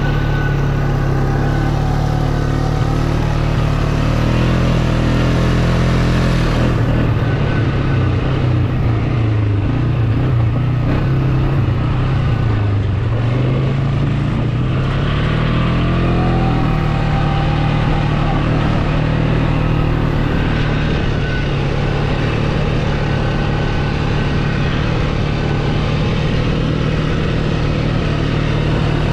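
Off-road vehicle engine running steadily. Its pitch drops and climbs again about halfway through as the throttle eases and opens.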